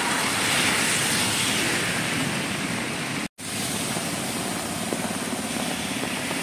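Road traffic in heavy rain: tyres hissing and splashing through standing water on a flooded street, with a bus passing close and then a car wading through the floodwater. The sound cuts out for a moment about three seconds in.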